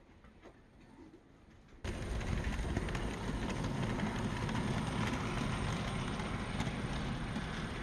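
OO gauge model train running along the track: a steady rumbling of wheels and motor that starts abruptly about two seconds in.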